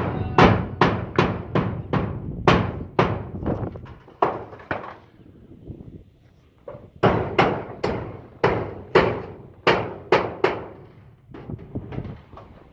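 Hammer blows on corrugated metal roofing at the ridge, about two to three ringing strikes a second, in two runs with a short pause between them and a few fainter blows near the end.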